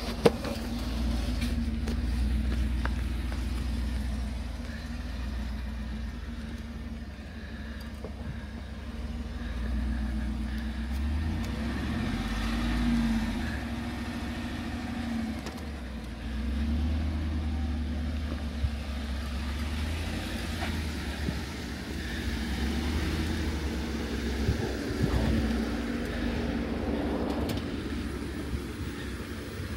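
Off-road 4x4 engine running at low speed while crawling over rough trail, its note rising and falling with the throttle. A sharp knock comes just after the start, with a few fainter knocks later.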